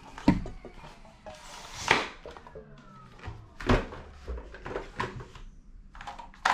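Plastic toy guns being handled on a tabletop: several separate knocks and clatters, about a second or two apart, as the blasters are lifted and set down among the others.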